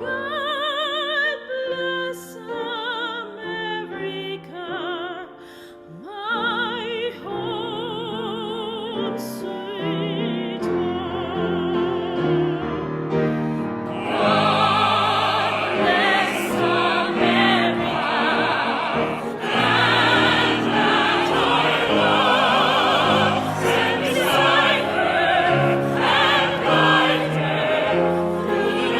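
Operatic singing with wide vibrato over instrumental accompaniment. About halfway through it swells into a fuller, louder sound with more voices.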